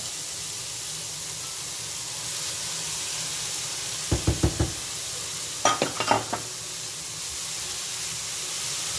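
Vegetables sizzling steadily in a hot frying pan on high heat as cooked rice goes in from a bowl. About four seconds in come about four quick knocks, then a second run of sharper taps a second and a half later, as the spatula strikes the bowl and the pan.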